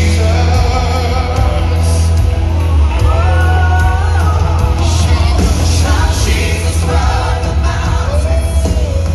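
Live worship music: a vocal team singing with a full band, a heavy bass line loudest underneath the voices.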